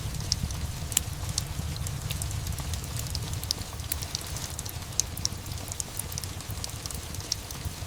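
Steady rain mixed with a crackling fire: scattered sharp pops and ticks over a low, even rumble.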